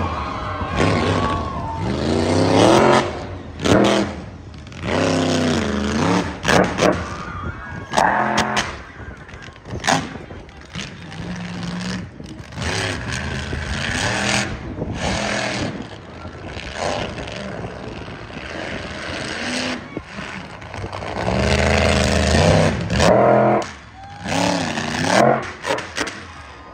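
Monster truck engine revving hard, its pitch sweeping up and down again and again with the throttle as the truck climbs over junk cars.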